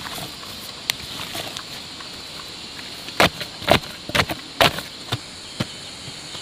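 Long wooden pole tamping loose earth around a wooden fence post: about six dull, sharp thuds from about three seconds in, bunched closest together around the fourth second. Before that, hands scrape and pat the soil softly.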